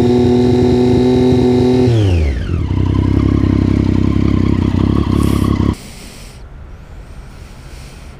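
Triumph Street Triple 675R's three-cylinder engine through an unbaffled Dominator slip-on exhaust, loud and held steady at about 5,000 rpm. About two seconds in the revs fall away to idle, and a few seconds later the engine sound cuts off abruptly.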